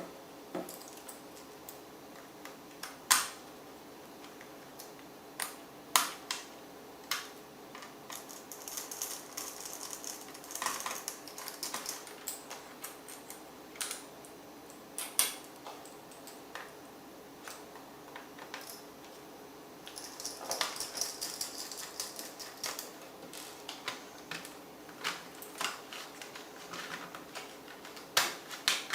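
Sharp clicks and taps of small plastic and metal laptop parts and tools being handled during disassembly, irregular and spaced out, with two stretches of quick, light scratchy rattling.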